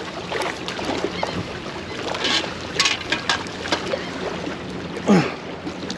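Steady wind and water noise on the shore, with scattered short knocks and clicks and one short call falling in pitch about five seconds in.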